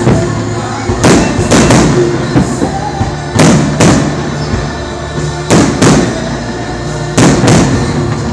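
Aerial fireworks shells bursting with sharp bangs, mostly in quick pairs about every two seconds, over steady music playing throughout.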